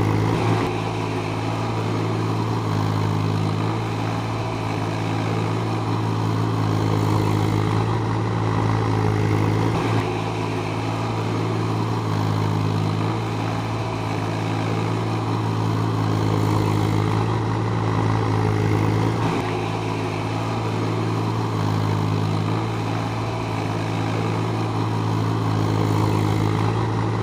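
JCB 30 Plus mini excavator's diesel engine running steadily, with a few small shifts in level along the way.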